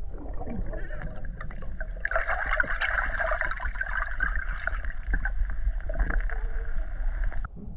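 Muffled underwater sound picked up by a camera beneath the surface: a deep rumble with scattered clicks, and from about two seconds in a louder fizzing rush of water that cuts off suddenly near the end.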